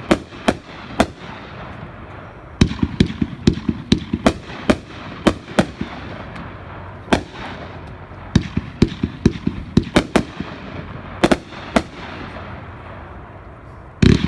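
A 500-gram consumer fireworks cake firing: sharp aerial bursts come in quick clusters of several bangs, over a steady crackle. The loudest bang comes near the end.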